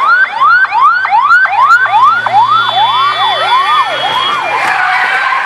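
Ambulance siren wailing in a fast yelp, about four rising whoops a second, slowing near the end.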